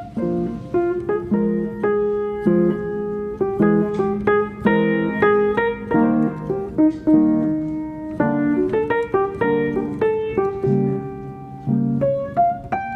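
Background piano music, a melody of separate notes over chords.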